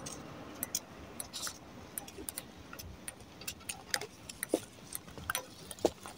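Table tennis rally on an outdoor concrete table: the ball clicking off the table and the paddles in an uneven run of sharp ticks, roughly two a second.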